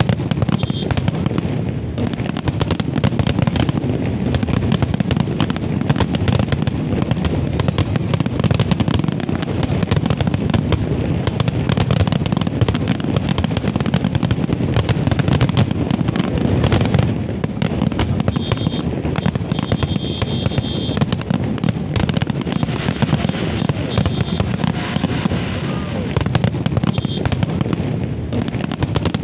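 Large fireworks display: a dense, continuous barrage of bursting shells, rapid overlapping bangs and crackles with no let-up.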